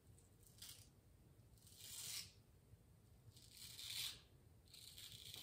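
Straight razor scraping through stubble and lather on the cheek and neck in about four short strokes, each a brief dry rasp.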